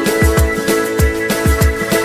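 Upbeat background music with a steady beat: a low kick drum with a falling pitch on each hit, crisp ticks on top and sustained synth chords.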